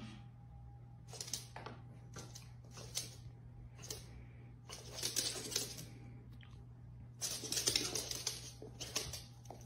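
A small dog's claws clicking and scrabbling on a hardwood floor. There are separate taps at first, then two quicker flurries of scuffling about five and seven-and-a-half seconds in, over a steady low hum.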